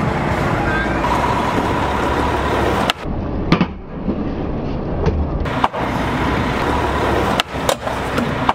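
Skateboard wheels rolling on concrete over steady street traffic, with sharp board clacks of a tail pop and landing about three and a half seconds in and again near the end. The sound breaks off abruptly a few times.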